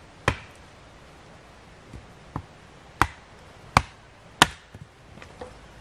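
Wood being chopped on a tree stump with a small blade: about five sharp, separate strikes at an uneven pace, the loudest a little before the end.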